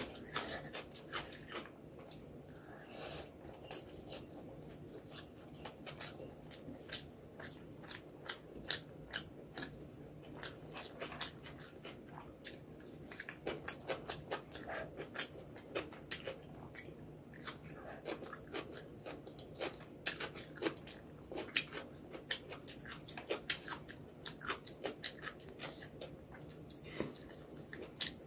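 Close-miked eating by hand: chewing and mouth smacks, mixed with fingers squishing and pressing rice and egg curry on a plate, in a steady stream of small wet clicks.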